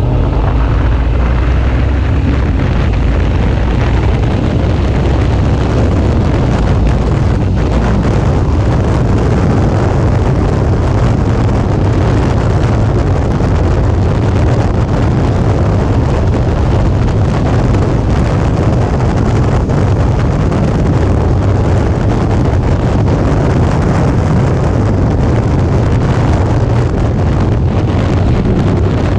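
Heavy wind rush on an action camera's microphone while riding a Suzuki V-Strom 650 at road speed, with the bike's V-twin engine and tyres as a steady low rumble underneath. The noise holds steady without letting up.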